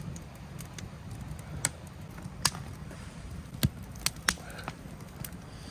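Wood fire in a steel fire pit crackling, with sharp, irregular pops over a steady low rumble.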